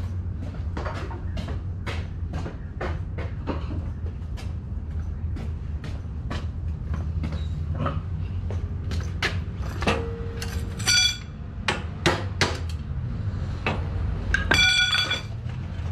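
Irregular metal clicks and knocks of hand-tool work on a generator frame as parts are bolted on, with two short metallic rings near the end, over a steady low hum.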